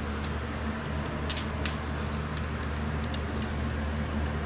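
A few light metallic clicks and clinks from a spark plug socket and extension being worked into the engine bay, over a steady low hum.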